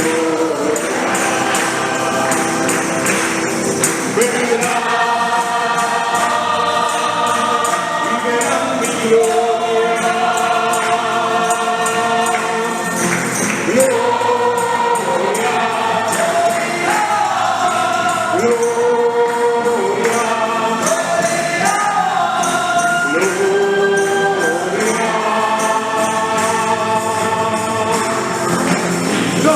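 Choir singing a hymn, held notes moving step by step, with a light rhythmic jingling percussion keeping time.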